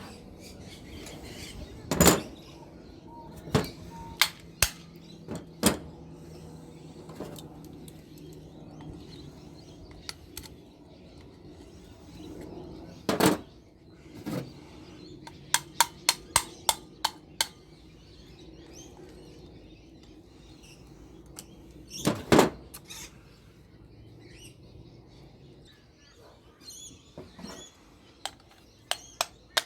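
Hand-tool work on scrap metal: scattered sharp knocks and clicks, with several loud single knocks and a quick run of about eight clicks near the middle, over a faint steady hum.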